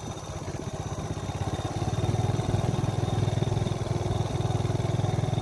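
Motorbike engine running steadily, getting louder about two seconds in.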